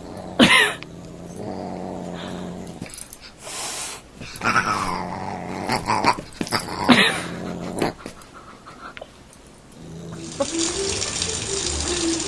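A pet's short, loud cries, three or four of them a few seconds apart. Background music comes in near the end.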